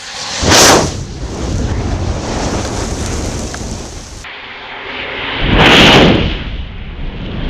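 A large mass of burning matches: a steady rushing fire noise, with two loud whooshing flare-ups, one about half a second in and another near six seconds.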